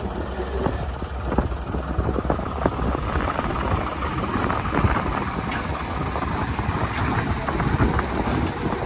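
Diesel engine of a Tata Hitachi 210 excavator running steadily while it loads sand into a tractor trolley, with scattered knocks and rattles throughout.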